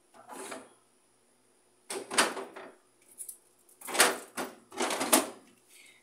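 Small plastic bottles and containers clattering and knocking as they are set into plastic baskets and onto refrigerator shelves, in four short bursts.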